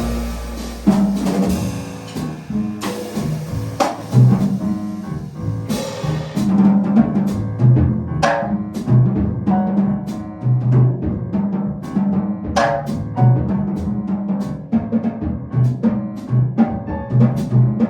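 Jazz piano trio playing: drum kit strokes stand out over a repeating bass line, with piano in the mix.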